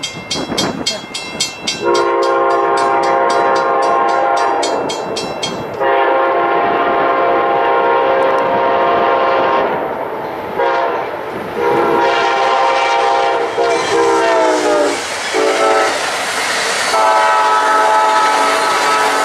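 Amtrak passenger locomotive's horn sounding a series of long blasts, with a shorter one between, as the southbound train approaches and passes. The horn's pitch drops as it goes by, about fourteen seconds in. A rapid high ringing, like a grade-crossing bell, runs through the first six seconds.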